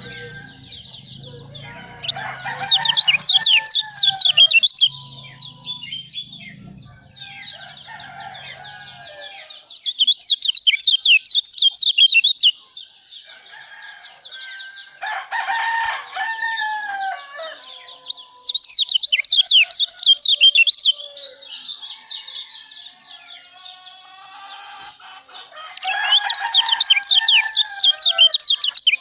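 Kecial lombok songbird singing: about five bursts of rapid, high-pitched twittering, each a few seconds long. Lower chattering and whistled calls sound underneath, and there is a low hum through the first third.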